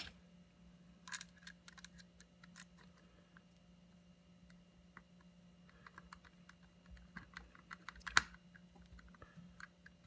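Small clicks and ticks of a screwdriver turning thread-forming screws into the plastic gear case of a Roomba 650 wheel module, as they seat in their existing threads. The clicks come thicker in the second half, with one sharper click about eight seconds in.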